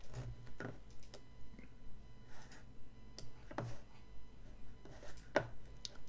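Computer mouse clicking now and then, about eight short, sharp clicks at irregular spacing, over a faint steady hum.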